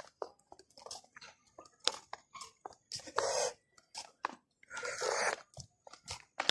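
Handling noise from a phone being carried at walking pace: irregular small clicks and taps, with two short rustles about 3 and 5 seconds in.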